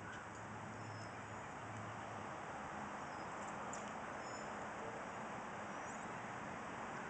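Steady outdoor background hiss with faint, short bird chirps now and then.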